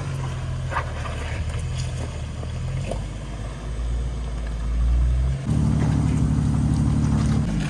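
A 4x4's engine running at low revs while crawling over a trail, then pulling harder and louder about five and a half seconds in, with a few light knocks early on.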